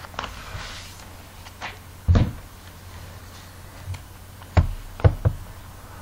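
A few scattered knocks and clicks. The loudest is a dull thump about two seconds in, and three more come in quick succession near the end.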